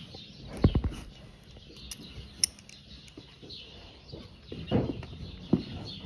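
Small birds chirping, with several thumps and rustles; the loudest thumps come just under a second in and again near the five-second mark.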